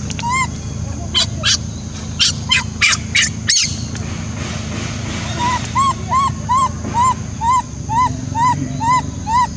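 Baby macaque crying: a few sharp squeals between one and three and a half seconds in, then a steady run of short, arched, high-pitched coos, about three a second, through the second half.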